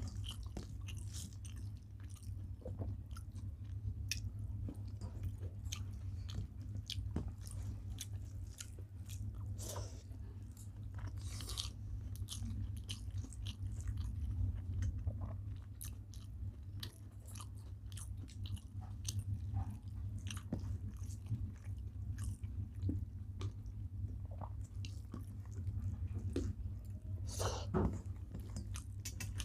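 Close-up eating sounds: people chewing mouthfuls of rice and vegetable curry, with many small, irregular wet mouth clicks and smacks. A steady low hum runs underneath.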